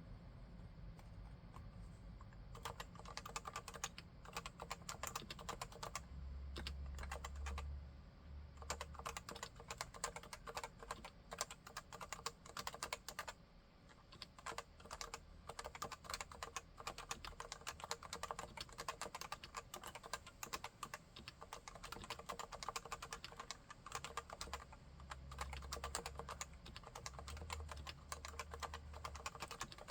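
Typing on a Leopold FC980C keyboard with 45 g Topre electrostatic capacitive switches: fast, continuous keystrokes starting a couple of seconds in, with a brief pause about halfway through.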